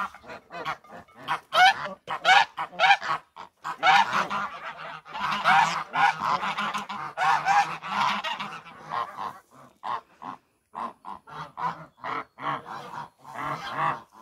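A flock of domestic white geese honking. Many short calls overlap in a dense run through the first half, then thin out to separate honks.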